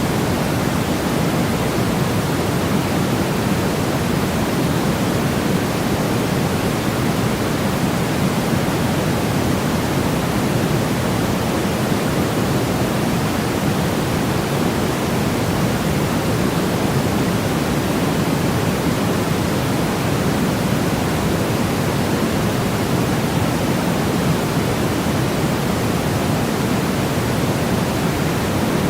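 Steady synthetic noise of the sleep-aid 'white noise' kind: an even, unchanging hiss weighted toward the low end, with no events in it.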